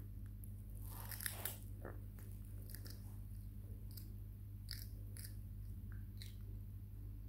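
Baby macaque biting into and chewing a piece of raw cucumber: short, crisp crunches, the loudest cluster about a second in, then single bites every second or so. A steady low hum runs underneath.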